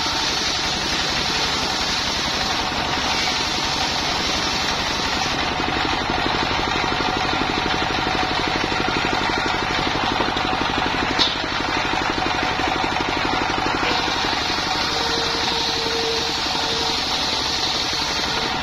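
Stationary single-cylinder diesel engine running steadily with a fast, even beat as it drives a circular sawmill blade, the blade cutting through timber in stretches. A single sharp knock comes about eleven seconds in.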